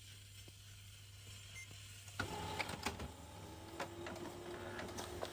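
HP LaserJet Pro MFP M227fdn laser printer starting a print. It gives a faint hum, then about two seconds in a click as the mechanism engages, and it runs on with a steady whine and light clicks. The newly replaced pickup roller is feeding the paper properly.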